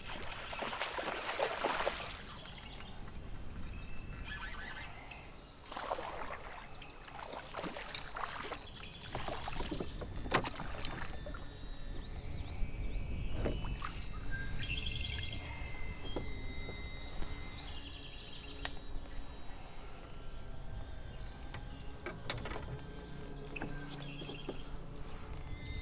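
A hooked bass splashing at the surface as it is fought from a kayak, with a burst of splashing near the start and more splashes and a few knocks later. Birds chirp in the background.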